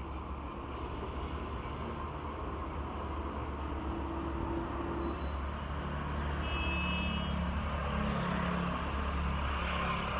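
Steady low rumble of road traffic, swelling a little about halfway through.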